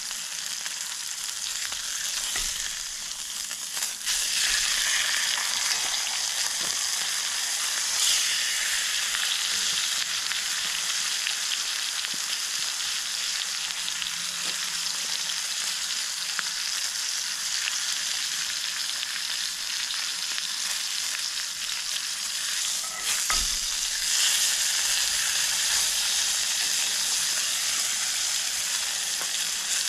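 Steak searing in oil in a cast-iron skillet: a steady sizzle that swells louder a few times, about four seconds in, around eight seconds and again past twenty seconds.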